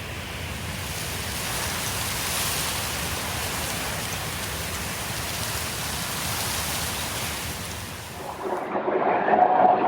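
Steady rainfall hiss, swelling slightly about two seconds in. Near the end the rain cuts off and a duller, lower sound takes its place.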